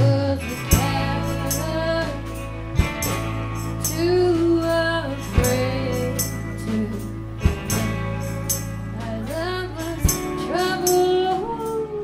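Live rock band: a woman singing over electric guitars and drums.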